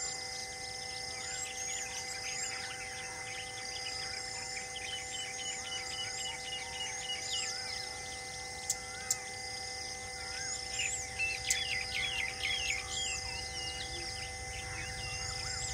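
Many birds chirping and whistling over a steady high insect buzz and a few faint held tones, with a busier run of calls about eleven seconds in and two sharp clicks just before it. A low rumble builds near the end.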